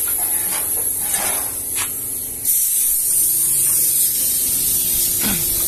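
Compressed-air paint spray gun hissing steadily as it sprays paint; the hiss gets louder about two and a half seconds in.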